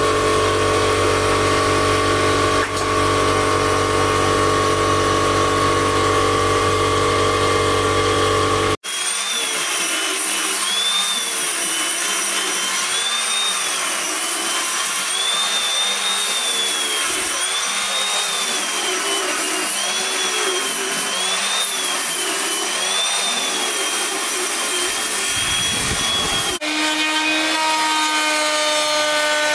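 Electric power tools working wood, in three cut-together passages. First a steady motor whine for about nine seconds, then a tool whose pitch rises and falls about every second and a half, then, near the end, a different steady motor hum from a benchtop woodworking machine.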